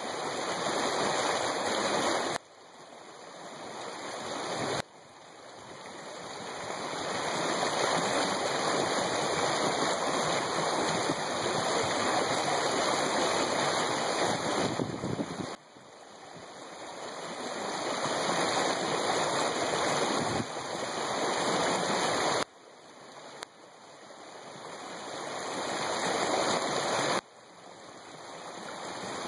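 Small creek flowing over a riffle: a steady rushing of water. The level drops abruptly every few seconds and swells slowly back up.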